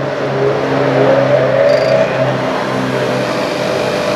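Metabo DS 200 bench grinder motor switched on and spinning up, a rising whine over about two seconds, then running steadily at speed.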